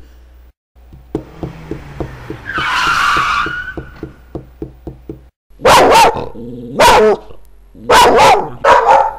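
A dog barking loudly, eight or so barks in bunches, starting about halfway through. Before it there is a run of quick light ticks, about three a second, and a brief hissing swell.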